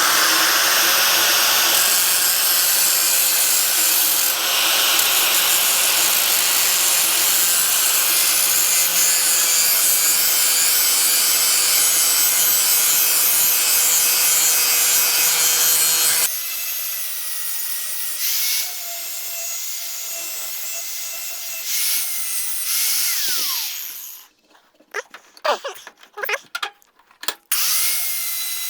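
Handheld power tool sharpening a steel mower blade. A loud, steady grinding with a constant motor hum goes on for about sixteen seconds, then turns to a lighter run with a whine. The motor winds down and is pulsed on and off in short bursts before starting again near the end.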